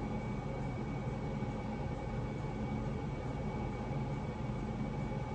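Steady background hum and hiss with a few faint steady tones and no distinct events: room tone.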